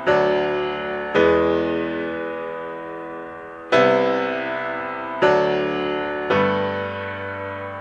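Background music: slow piano chords, five struck in turn, each left to ring and fade before the next.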